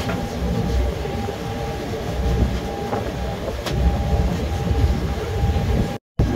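A passenger ferry's engine running steadily under way, with a faint steady whine, wind buffeting the microphone and water rushing past the hull. The sound drops out for a moment near the end.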